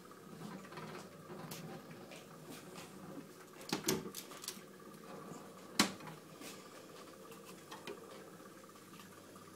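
Switched-on Jupiter J80 jukebox standing idle with no record playing: a faint steady electrical hum, with a few sharp clicks and knocks about four seconds in and again near six seconds.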